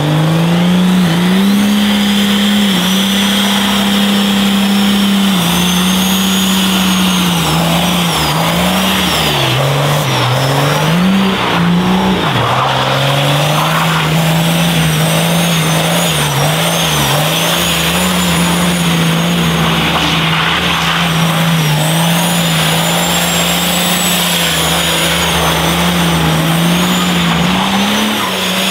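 First-generation Dodge Ram Cummins diesel pickup held at high revs during a burnout, its engine note steady with repeated dips and wobbles as the spinning rear tires grab and slip. A thin, high wavering squeal runs above the engine.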